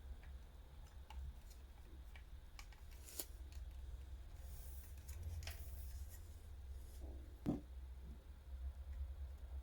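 Faint handling noise of vacuum parts and packaging: scattered light clicks and rustles over a low steady hum, with one slightly louder knock about seven and a half seconds in.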